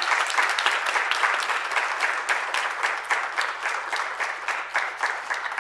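Audience applauding: dense clapping that eases off slightly toward the end.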